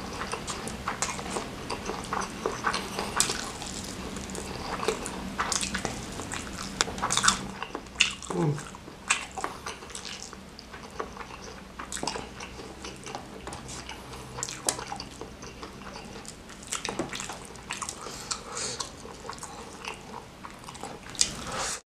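Close-up wet chewing, biting and lip-smacking of a person eating fried chicken and fried instant noodles by hand, with many small mouth clicks. The sound cuts off suddenly just before the end.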